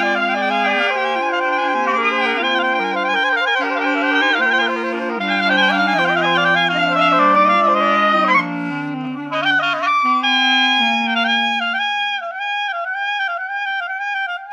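Clarinet étude playing a low sustained part under quicker runs higher up. About nine seconds in comes a rising sweep, and near the end the low part fades, leaving a higher line repeating a short figure.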